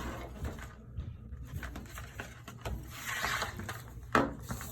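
Cardboard panels being folded over and squeezed down by hand, with small clicks and a rustle of cardboard about three seconds in. A short pitched sound comes just after four seconds in and is the loudest thing heard.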